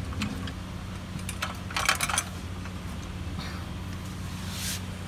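A few scattered light clicks and clacks from a floor jack being set under the car, over a steady low hum.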